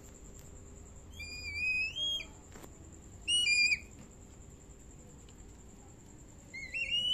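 Black kite calling: high, wavering whistles that rise in pitch, one about a second in lasting about a second, a short one midway and another starting near the end.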